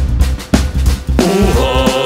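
Upbeat backing music with sharp drum hits, and a pitched melody line coming in after about a second.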